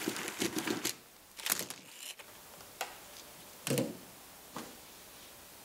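Dried corn cobs handled by hand: a rustle of handling, then a few separate dry knocks as cobs clack against one another.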